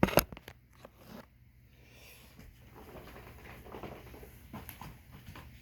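A few sharp clicks at the start, then low, uneven rustling, like something being handled.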